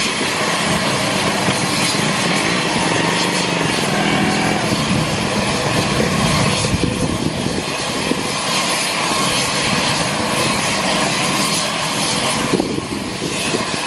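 Steady loud rush and whine of aircraft turbine engines running on the ground, dipping slightly a couple of times.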